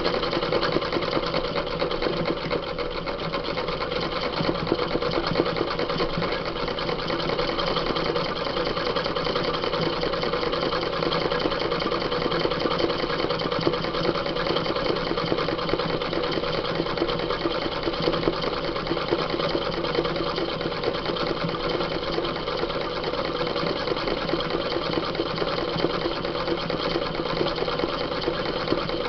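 Domestic sewing machine running steadily at speed, its needle stitching in rapid, even strokes as it fills in free-motion embroidery on hooped denim.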